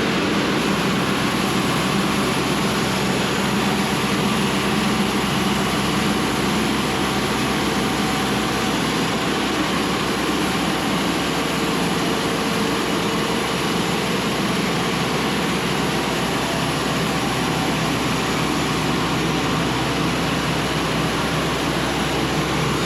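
Cook's AC-36 bandsaw mill running steadily at full throttle on its diesel engine, the saw head feeding forward and the band blade cutting a board off a log.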